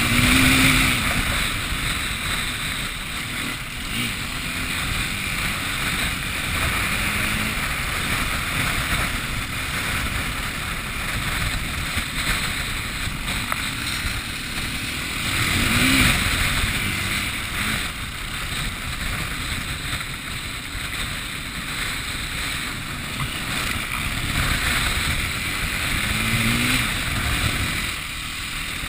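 Steady rushing noise of wind and wet weather. An engine sound swells and fades briefly three times, near the start, about halfway and near the end.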